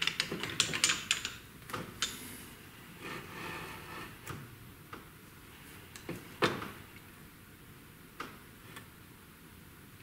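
Hand work on a small benchtop metal lathe with its motor off. First comes a quick run of metallic clicks as a drill bit is cranked tight in the tailstock drill chuck, then a few separate knocks as the tailstock is handled.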